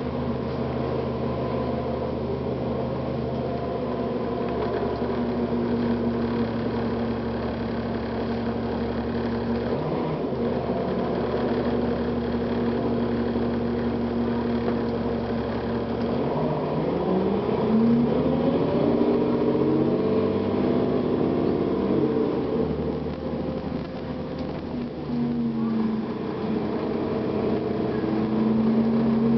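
Cummins ISL diesel engine of a 2009 Gillig Advantage transit bus running steadily at low revs. About halfway through it pulls away, its pitch rising in steps as the Allison automatic transmission shifts up, then it eases off a few seconds later and settles back to a steady hum.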